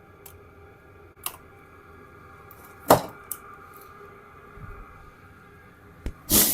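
Handling noises from working on a small part by hand: a few sharp knocks and clicks of tools and parts being picked up and set down, the loudest one near the end.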